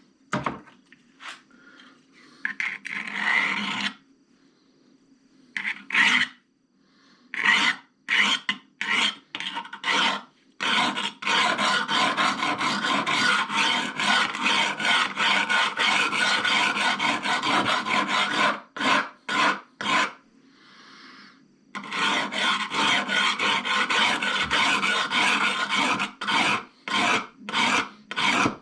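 Coarse diamond hone rasping back and forth along a steel scissor blade in rapid strokes, a few separate strokes at first and then long continuous runs with a short pause near the end.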